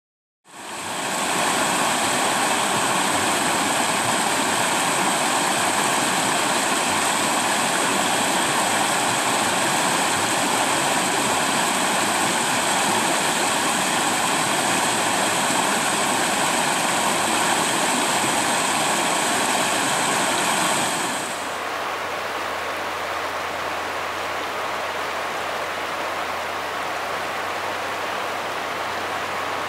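Steady rush of a shallow river running over rocky rapids, with faint steady high tones over it. About two-thirds of the way through, the sound changes suddenly to a quieter, softer rush with a faint low hum beneath.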